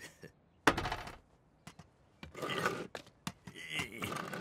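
A sharp knock with a short rattle, then a few light clicks, followed by a voice grunting and mumbling without words.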